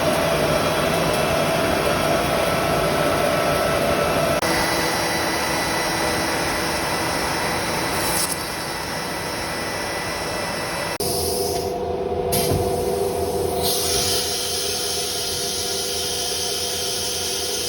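4-axis CNC router spindle running and milling solid walnut, a steady whine over a rushing noise. The tone shifts abruptly several times as the cut changes.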